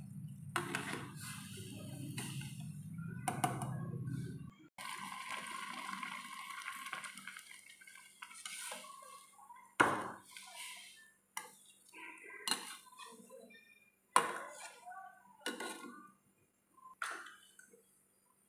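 A slotted steel spoon stirring vermicelli in a stainless steel pot of boiling liquid, scraping and clinking against the metal. It sits over a steady low rumble that cuts off sharply a little over four seconds in. In the second half the spoon knocks sharply against the pot six times, about one a second.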